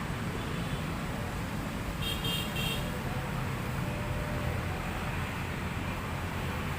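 Steady rumble of road traffic, with a short, high car horn toot about two seconds in.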